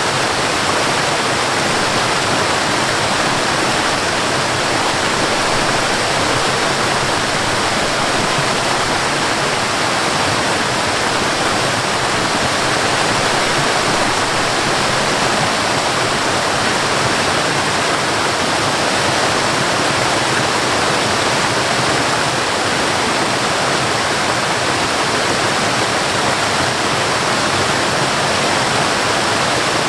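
High waterfall: a steady, loud rush of falling water with no change.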